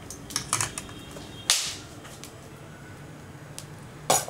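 Steel cake tin being set down inside a pressure cooker: a few light clicks, a sharp knock with a short fading tail about a second and a half in, and another sharp knock near the end.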